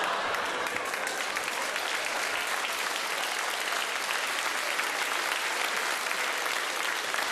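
Theatre audience applauding steadily, a dense even patter of many hands clapping.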